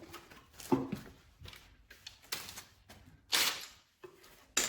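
Handling noise from tools and fastener boxes being moved about: a few light knocks and clicks with a short rustle, the last click sharp, near the end.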